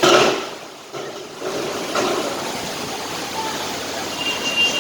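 Heavy monsoon rain and wind making a steady rushing noise. A loud surge comes right at the start and dies away within a second.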